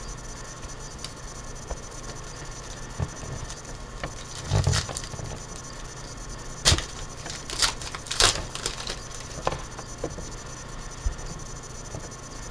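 Foil wrapper of a trading-card pack being torn open and crinkled by hand, in short irregular crackling bursts that come thickest in the middle, with light clicks of cards being handled.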